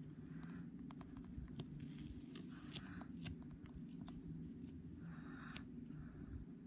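Faint handling noises of fitting an adhesive mount plate onto a phone: scattered small clicks and soft rubbing of fingers on plastic, over a low steady hum.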